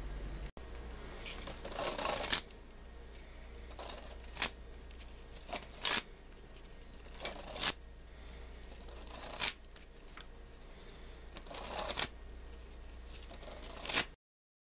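A deck of playing cards handled and shuffled by hand: a series of short riffling snaps, irregularly a second or two apart, over a steady low hum. The sound cuts off suddenly near the end.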